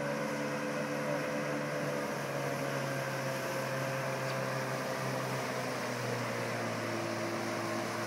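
Small outboard motor running steadily on a boat under way, an even engine drone whose pitch sinks slowly as the boat draws away.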